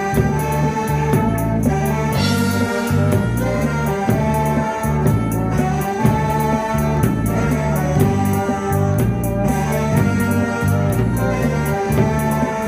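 A trot medley played by an amateur band: a bass line stepping back and forth between notes under a steady beat, with a held melody line above.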